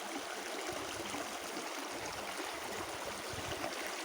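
Clear water flowing steadily along a small open channel.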